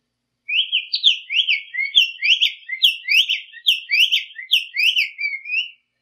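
Black-faced tanager (sanhaço-de-coleira) singing: a fast string of short slurred notes, about three a second. The song starts about half a second in and stops shortly before the end.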